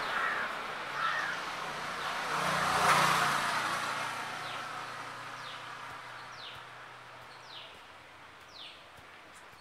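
A vehicle passes on the road, swelling to its loudest about three seconds in and then fading away. As it fades, a bird repeats a short falling call about once a second.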